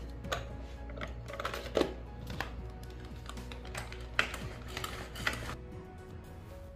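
Manual pull-cord hand chopper pulled again and again, its blades making a run of irregular clicking rattles as they chop a thick mix of boiled chicken and lentils. Background music plays underneath.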